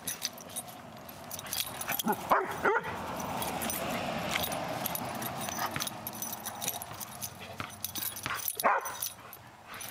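Springer spaniel puppy giving a few short, high yips and barks while playing with a rooster: a cluster about two to three seconds in and another near the end, with a noisy scuffle in between.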